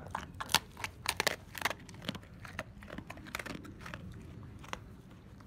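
A husky crunching and chewing a treat close to the microphone: a run of sharp crunches, thickest in the first two seconds, then scattered.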